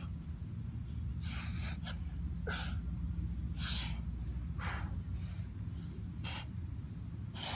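A man's short, forceful breaths of exertion, about one a second, in time with one-arm kettlebell shoulder presses, over a steady low rumble.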